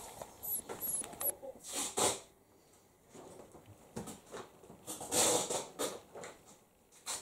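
Italian greyhound puppies making a few short breathy snuffles and snorts, with quieter stretches between. A bird chirps three times in the first second and a half.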